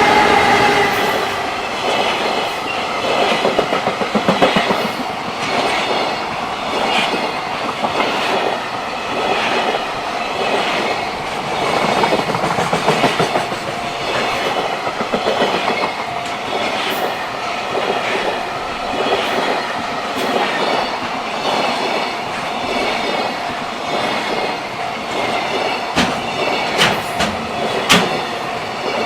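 A JR Freight train running past a level crossing, its wagons clattering steadily over the rail joints with a few sharp knocks near the end. A steady ringing tone runs through it, which fits the crossing's warning bell.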